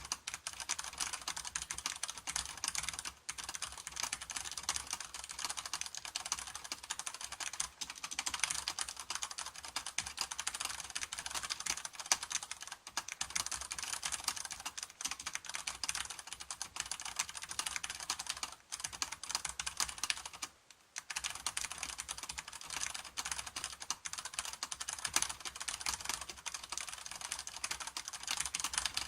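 Fast, continuous typing on a mechanical keyboard fitted with Cherry-profile dye-sublimated PBT keycaps, the keystrokes clattering in a dense stream with one brief pause about twenty seconds in.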